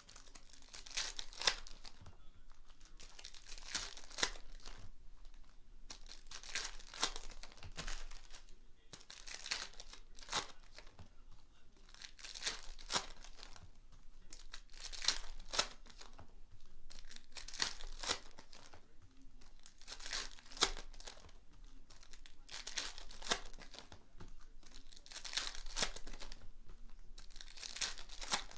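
Foil wrappers of Panini Prizm Fast Break trading-card packs being torn open and crinkled by hand, pack after pack, in short rustling bursts every two to three seconds.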